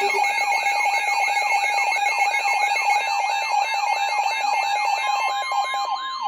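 Emergency weather alert alarm tones from several alert radios sounding together: a warbling, siren-like tone falling about four times a second over steady beeping tones. A further steady tone joins about five seconds in.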